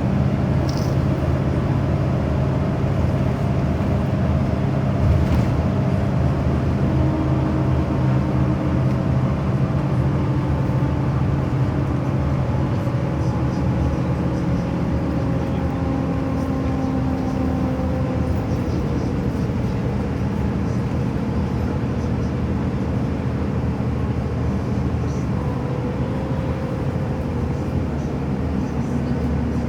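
Steady drone of a vehicle in motion, an engine hum with slow small shifts in pitch over running noise.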